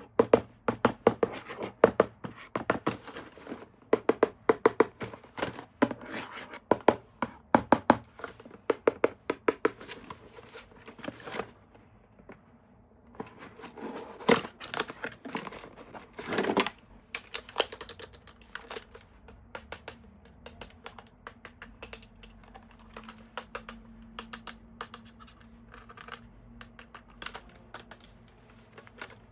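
Toy packaging being handled and opened: rapid light clicks and taps, a short scratching noise about sixteen seconds in, then sparser clicks.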